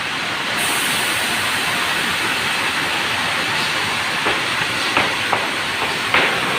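Semi-automatic sawmill running with its saw cutting Merbau timber: a steady, even noise, with several sharp knocks over the last few seconds.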